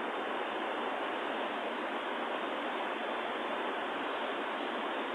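Steady, even hiss of background noise with no change and no distinct events.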